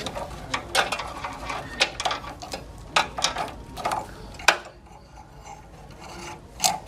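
Small metal parts clinking and tapping as they are handled: a dozen or so irregular sharp clinks, the sharpest about halfway through, with a quieter spell after it.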